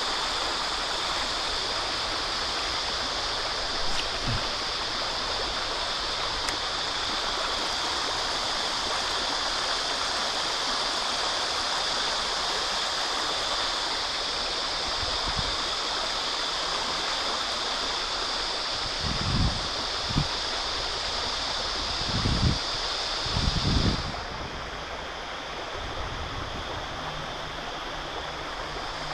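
River water running steadily over shallow riffles. A few short low bumps come near the end, and the high part of the hiss drops away shortly before the end.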